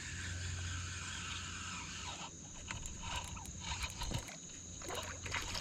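Water splashing and irregular knocks and clicks as a hooked fish is brought up to the side of a kayak, starting about two seconds in, over a steady low hum.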